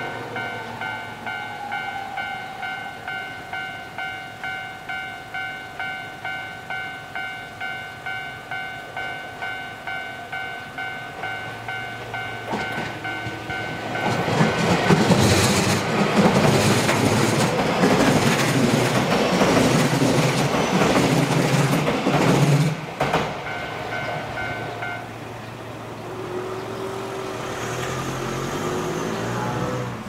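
Japanese level-crossing warning bell dinging in a steady beat, about one and a half strikes a second, while a Keio Inokashira Line commuter train approaches and passes through the crossing about halfway in with a loud rumble and wheel clatter. The train sound drops away, and the bell stops near the end as the crossing reopens.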